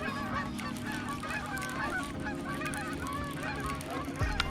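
A flock of geese honking, many calls overlapping continuously.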